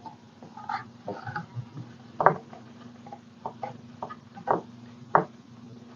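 Scattered light taps and clicks of hands and craft tools working on a tray, with three louder knocks, over a faint steady low hum.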